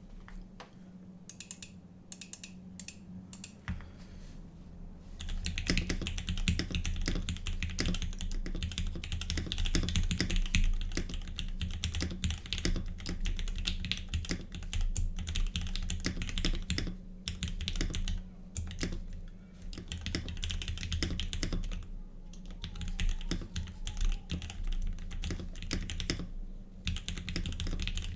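Typing on a Laneware LW-75 custom mechanical keyboard with lubed and filmed Turquoise Tealios linear switches on an aluminium plate, under GMK Trackday clone keycaps. A few single keystrokes come first, then fast, continuous typing from about five seconds in, with a few short pauses.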